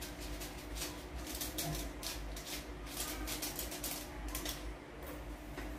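Quick, irregular light taps and ticks of a small pepper container being tapped and shaken over a dish, several a second, to get out the last of the ground pepper.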